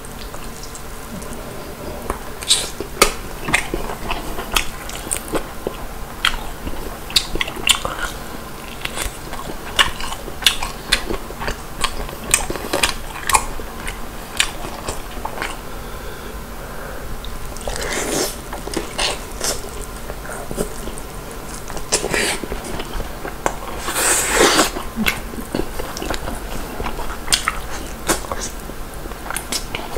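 Close-miked biting and chewing of Korean-style fried whole chicken: irregular crisp crunches and wet mouth clicks. A couple of longer, louder smacks come about eighteen and twenty-four seconds in.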